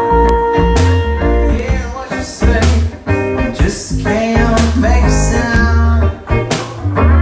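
Live blues-rock music: a hollow-body electric guitar played with a kick drum thumping a steady beat underneath, and a voice singing.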